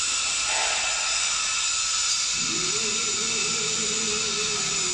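CNC wood lathe machine noise: a steady high hiss, joined about two and a half seconds in by a steady motor whine as an axis is jogged into position with the hand-held pulse generator.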